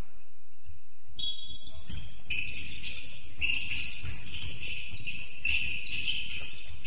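Basketball play on an indoor court: many short, high-pitched sneaker squeaks on the floor, starting about a second in and coming thick and fast, over scattered low thuds of footsteps and the ball.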